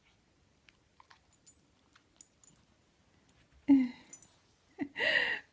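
Mostly quiet with faint scattered clicks, then two short voice sounds near the end, the second one rising in pitch.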